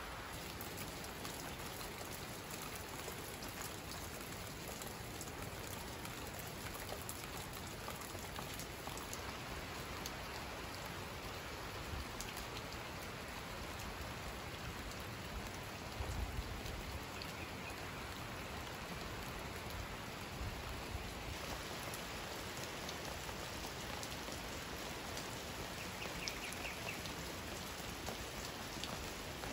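Heavy rain falling steadily, an even dense hiss, with a brief low rumble about halfway through.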